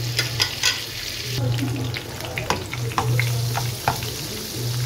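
Butter sizzling as it melts in a hot nonstick frying pan, with many short crackles and pops, while a plastic spatula pushes it around the pan.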